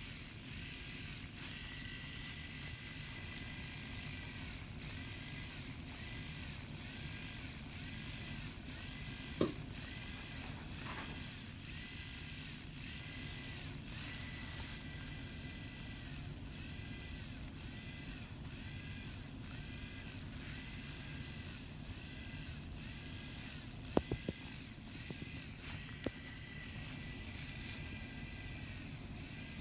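Motorized FUE punch drill running during graft harvesting: a steady mechanical whine that dips in a regular pulse about one and a half times a second. A few sharp clicks come through, once near the middle and a cluster near the end.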